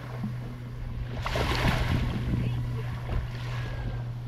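A boat's outboard motor running at idle, a steady low hum, with a louder rush of noise about a second in.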